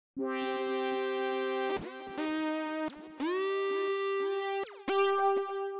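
Korg ARP Odyssey software synthesizer playing sustained lead notes in four short phrases with brief gaps between them, some notes sliding up or down in pitch, as its factory lead presets are auditioned one after another.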